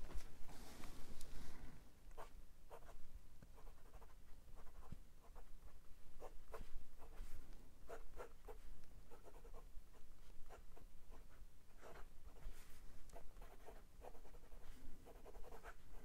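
Steel nib of a Kanwrite Heritage acrylic fountain pen writing on 90 gsm Clairefontaine paper: faint, short, irregular strokes of the nib across the page as a line of words is written.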